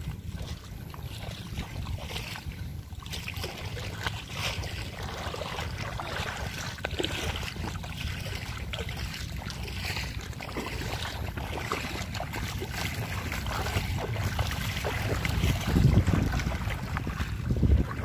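Wind buffeting the microphone: a steady low rumble with two louder gusts near the end, over scattered splashing of shallow floodwater.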